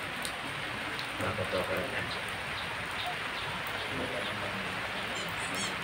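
Steady hiss of rain falling, with faint murmured voices in the background and a few quick high chirps near the end.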